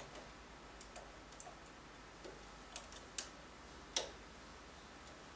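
Light, irregular clicks and ticks of metal knitting-machine needles and a hand tool as stitches are closed off by hand on a single-bed knitting machine. The loudest click comes about four seconds in.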